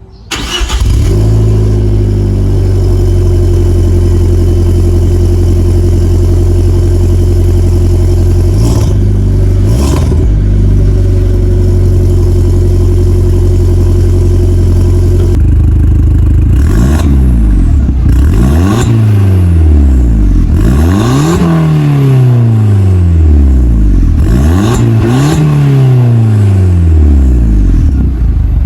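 A car engine starts with a short flare and settles into a steady idle, blipped briefly twice. About halfway through it is revved repeatedly, roughly five times, each rev rising in pitch and falling back toward idle.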